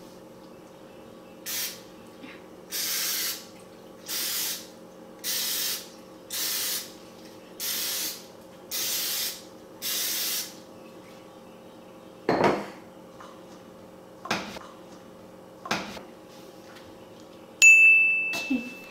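Pam cooking-spray aerosol can sprayed into a muffin pan in eight short hisses, about one a second. A few knocks follow, and near the end a loud, bright ringing tone sets in and fades.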